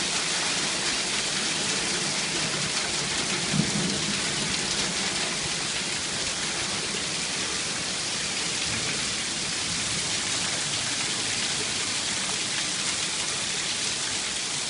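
Hail and heavy rain pelting down, a steady dense patter of countless small hits, with one dull low thump about three and a half seconds in.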